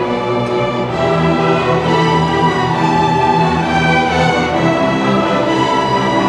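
A middle-school string orchestra playing held notes, violins over cellos, with the lower parts growing stronger about a second in.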